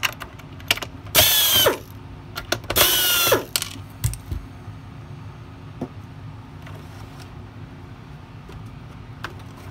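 Two short bursts, about a second apart, of a screwdriver backing security Torx screws out of a Shark NV500 vacuum's plastic housing, followed by a few light clicks and taps.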